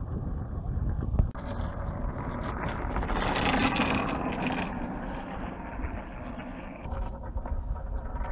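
Ice sailboard gliding past on its runners across wet lake ice: a rushing scrape that swells to its loudest three to four seconds in, then fades as the board moves away, over low wind rumble on the microphone.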